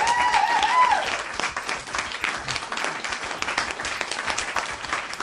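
Canned crowd applause with whoops and cheers in the first second, then steady clapping that fades off near the end.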